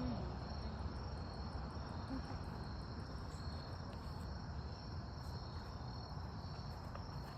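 Insects trilling steadily in two high, unbroken tones over a low rumbling noise.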